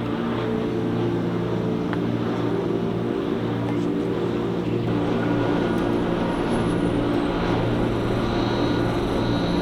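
Suzuki Jimny engine running steadily while driving, a constant low drone with no change in revs.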